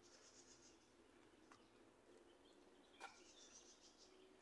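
Near silence with faint, high bird chirps near the start and again about three seconds in, and a single light click around three seconds.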